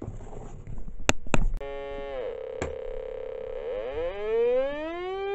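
Two clicks about a second in, then a buzzy electronic test tone from a signal generator, amplified by a Velleman K1803 mono preamplifier and played through its small built-in speaker. The tone drops in pitch and holds steady, then glides smoothly up in pitch like a siren near the end.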